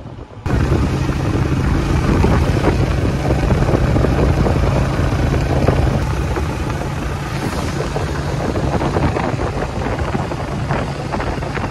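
Motorcycle tricycle engine running steadily on the move, a constant low hum under heavy wind noise on the microphone.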